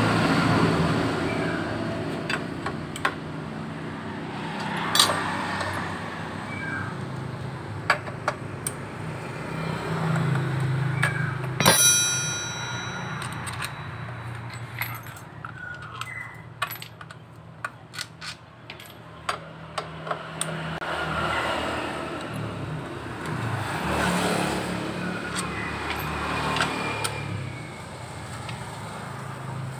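Small metallic clicks and clinks of hand tools and bolts while the CVT cover on a Yamaha Soul GT scooter is being unbolted. About twelve seconds in comes one sharp metal clang that rings on. A vehicle engine hums in the background, swelling and fading a few times.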